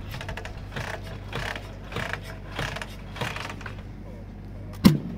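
A Dnepr K-750 sidecar motorcycle's side-valve flat-twin being kicked over. A run of rough strokes comes about every half second, the engine does not catch, and a single sharp metallic clack follows near the end.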